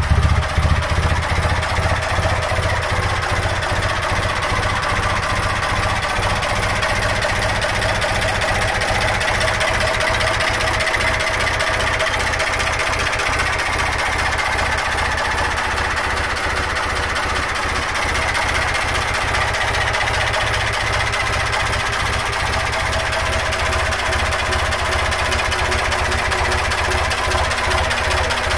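Ruston diesel engine running with an even, regular knocking beat. It is a little louder for the first second, then settles and runs steadily.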